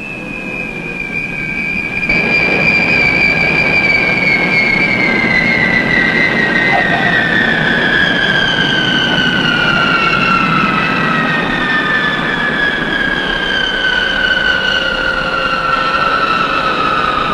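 Boeing KC-135A jet tanker's Pratt & Whitney turbojets whining during landing and rollout, over a steady rush of jet noise. The whine slides slowly and steadily down in pitch, and the sound grows louder about two seconds in.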